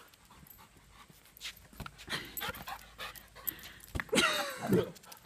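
A dog panting in short, quick breaths. About four seconds in there is a louder sound whose pitch bends up and down.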